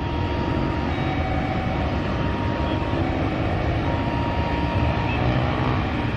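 Jet airliner engines running with a steady rumble and a faint high whine.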